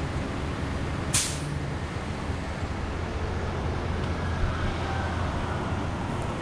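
Steady low rumble of street traffic, with a short sharp hiss about a second in.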